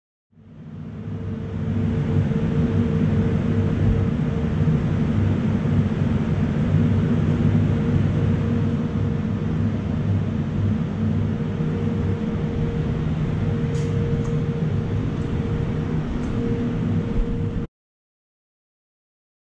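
Large 2 MVA alternator set running steadily: a loud, even electrical hum over a mechanical whir. It fades in at the start and cuts off suddenly near the end.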